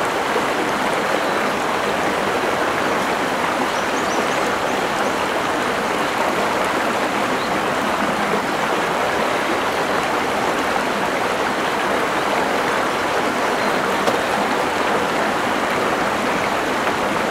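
Steady rushing of a river flowing over rocks, an even noise that does not change.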